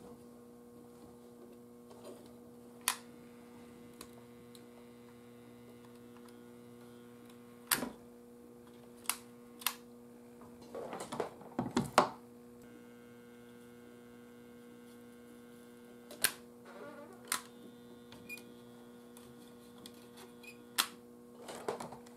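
Steady electrical mains hum, with a scattering of short sharp clicks and taps from handling wires and capacitor leads in a tube radio chassis; the loudest cluster comes about halfway through.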